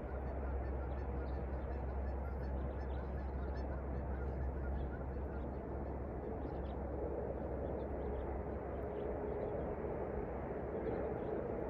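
Open-air park ambience: small birds chirping faintly and often over a steady low rumble, with a steady hum coming in about halfway through and dropping slightly in pitch near the end.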